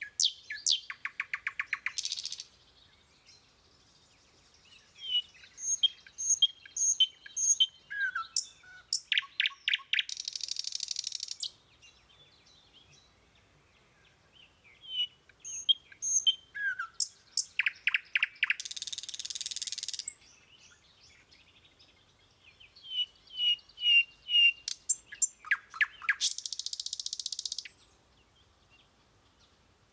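Birdsong on a repeating background loop: high chirps and fast trills with a longer buzzy trill, the same sequence coming round about every eight seconds.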